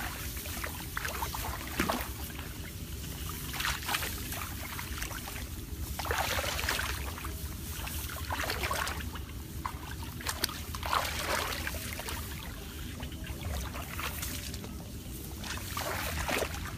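Water splashing and sloshing in irregular bursts every second or two, over a steady low rumble.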